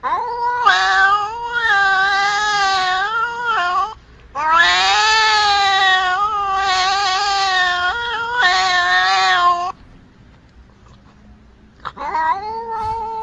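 Domestic cat yowling: three long, wavering caterwauls. The second is the longest, at over five seconds, and the third starts near the end.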